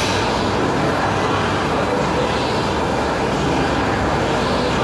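Steady rumbling background noise of a gym floor, with no distinct impacts or clanks.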